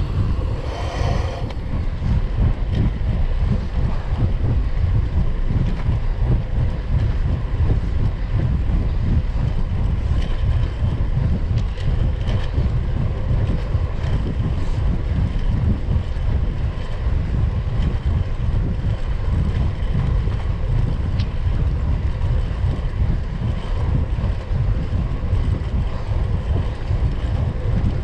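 Wind rushing over the microphone of a handlebar-mounted camera on a moving road bike, a steady low buffeting rumble.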